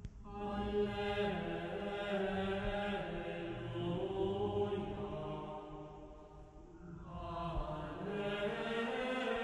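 Background music of slow sung chant with long held notes, in two phrases with a short lull about six and a half seconds in.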